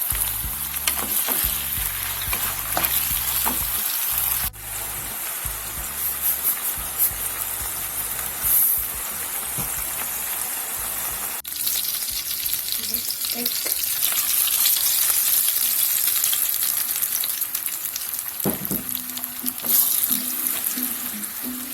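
Food frying in a pan with a steady sizzle while it is stirred, with scattered utensil clicks in the first few seconds.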